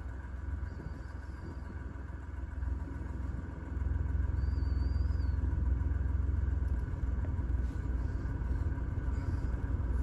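Car engine idling, heard close behind the tailpipe as a steady low exhaust rumble that gets louder about four seconds in.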